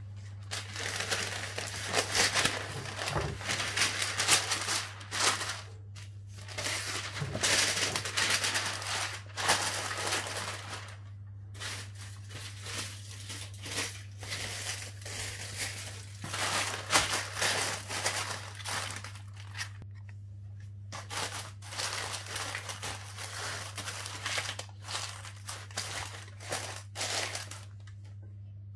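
Baking paper and then aluminium foil crinkling and rustling as they are handled, torn and pressed over a dish of chicken, on and off with short pauses.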